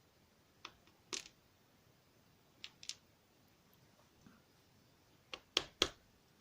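Small, sharp clicks and taps, about seven spread out, the loudest near the end: the tiny pins and parts of a DOM ix5 lock cylinder being handled as the key pins come out of its core.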